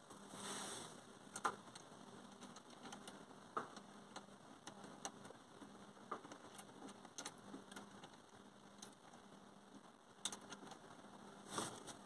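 Faint clicks and ticks of small metal parts being handled as a toggle switch is fitted into a plastic dash panel and its nut threaded on by hand, with a few sharper clicks scattered through.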